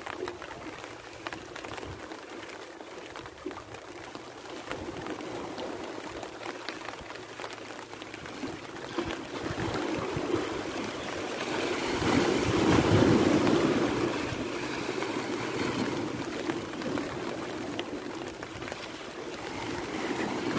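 Sea waves washing against the boulders of a rock breakwater, a steady rushing wash that swells louder about twelve seconds in and eases off again.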